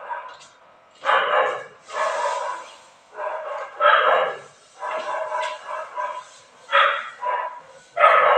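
A dog barking and yelping over and over, a call about every second.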